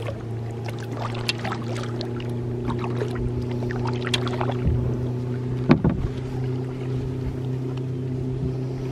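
Motorboat engine droning steadily across the water, with light splashes and drips from kayak paddle strokes now and then, one louder splash about six seconds in.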